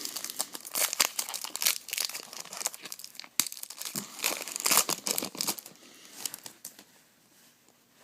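Trading card pack wrapper being torn open and crinkled, a dense crackling rustle that dies down near the end.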